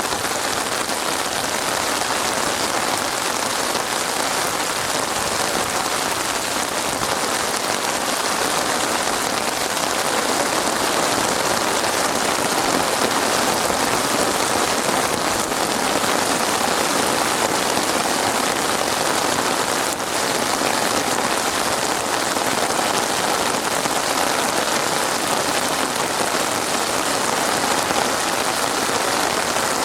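Steady rain falling and pattering on a surface, an even, unbroken hiss with no thunder.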